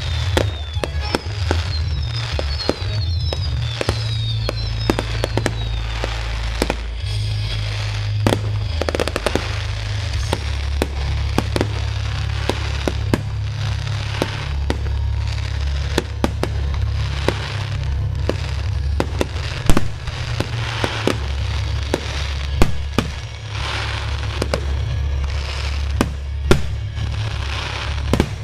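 Aerial fireworks bursting, with a rapid scatter of sharp cracks and bangs and a few louder booms in the second half, over music with a steady deep bass.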